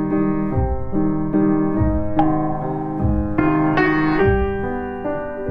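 Background piano music, a new note or chord sounding every half second or so over a low bass line.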